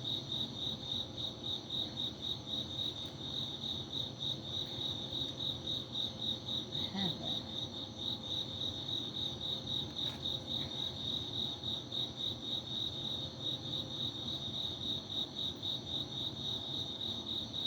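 Crickets chirping in a steady, evenly pulsed rhythm.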